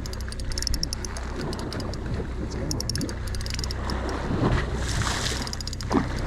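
Party boat's engine running with a steady low hum, with wind, faint voices and stretches of rapid fine clicking.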